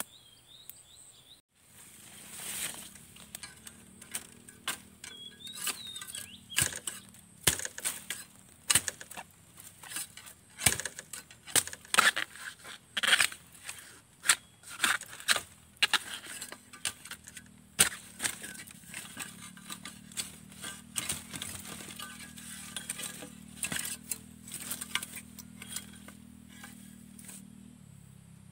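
Repeated sharp chopping knocks and cracks, irregular at about one or two a second: a bamboo shoot being cut out at the base of a bamboo clump.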